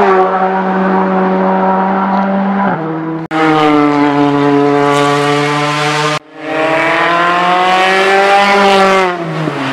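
Rally car engines at high revs as the cars drive past, three cars one after another with an abrupt cut to each. The first drops in pitch briefly, as on a gear change. The last rises steadily in pitch and then falls away near the end.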